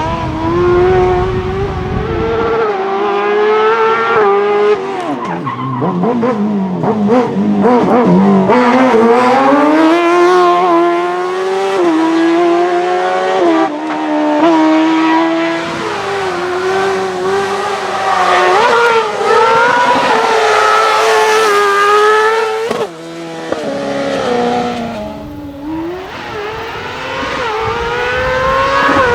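Race car engine revving hard on a slalom hillclimb run. Its pitch climbs and drops again and again as it goes through the gears, with a sharp drop a little over twenty seconds in.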